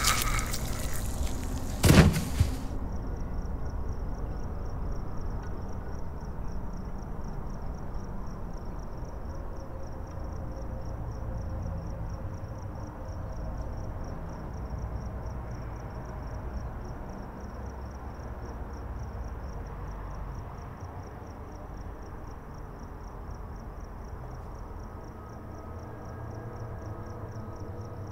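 Horror-film soundtrack: a loud bang about two seconds in, then a low rumbling drone under a fast, steady, high-pitched chirping of crickets.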